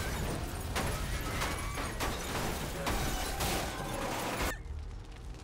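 A vehicle blowing up and crashing: a rumbling blast with repeated crashes and clattering of metal and debris, dying down about four and a half seconds in.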